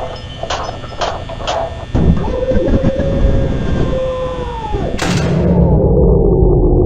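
Heavy banging on a door, about two knocks a second. Then, about two seconds in, a loud distorted boom with a low rumble and a held tone. Near five seconds a sharp crash follows, after which the sound goes muffled: a low rumble with a slowly falling tone, like an edited explosion effect.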